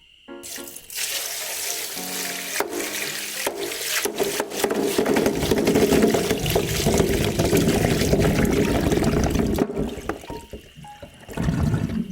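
Water running or pouring loudly and close, starting about half a second in, getting fuller after a few seconds and stopping suddenly near the end, with soft piano background music under it.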